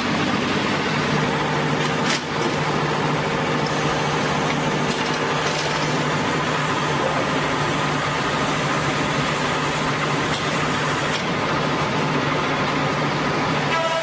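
Sawmill machinery and a powered roller conveyor running: a steady mechanical noise with a low hum, and a single short knock about two seconds in.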